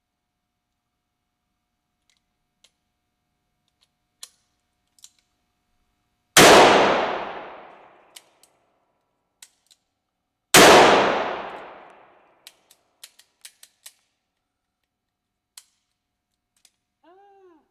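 Two gunshots about four seconds apart, each ringing out for over a second, with light clicks and taps of gun handling around them.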